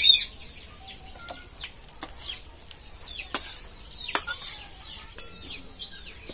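A metal spoon scraping and knocking against a black kadai as thick rice pudding is scooped out into a steel bowl, with a sharp, loud scrape right at the start and several short clicks after it. Birds chirp over it, short falling chirps repeating quickly throughout.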